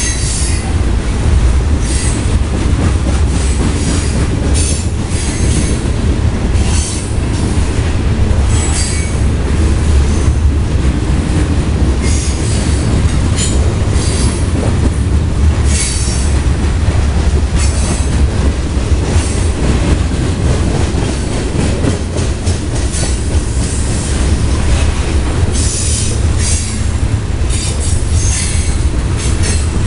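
Freight train of covered hopper cars rolling past close by: a steady low rumble of wheels on the rails, with irregular short, high-pitched screeches and clatter from the wheels.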